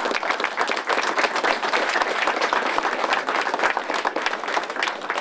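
A small group of people applauding: many overlapping hand claps at a steady level.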